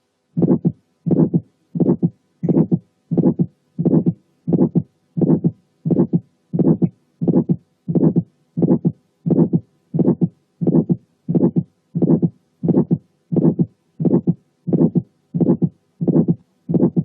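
Recorded heart sounds of early aortic stenosis: each beat has a first sound, then at once an ejection click, then an ejection systolic murmur and the second sound. The click comes from the thickened, fibrosed but still mobile aortic valve cusps snapping open. The beats come regularly, about three every two seconds.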